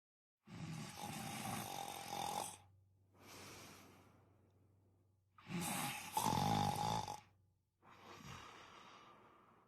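A person snoring: two loud snores on the breath in, each followed by a quieter breath out that fades away.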